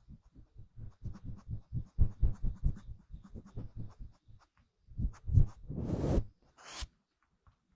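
Close-miked scratching on an object: a quick run of short strokes, then two brief swishes near the end.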